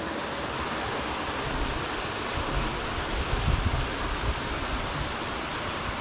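Steady rush of river water running over rock slabs, with some low wind buffeting on the microphone around the middle.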